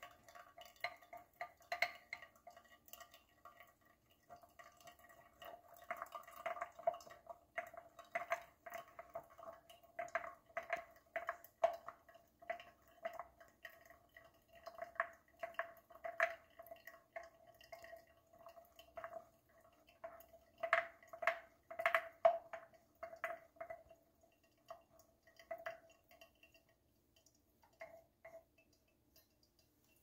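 Spoon stirring wet coffee grounds in a ceramic pour-over dripper: faint, irregular clinks and scrapes against the cone, about one or two a second, over a faint steady tone. The clinks thin out and stop near the end.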